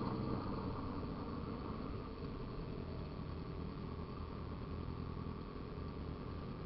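Motorcycle engine running steadily at low revs under a low rumble, its note dropping back just as it begins.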